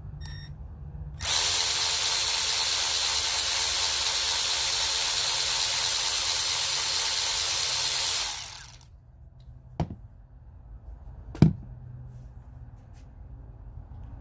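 Cordless electric ratchet running free with no load, a steady motor-and-gear whine lasting about seven seconds and then stopping. After it come a light click and a sharper knock.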